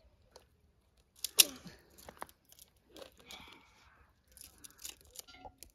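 A child's short, loud cry that falls in pitch, about a second in, followed by a few shorter vocal sounds amid scattered crackling and rustling noises.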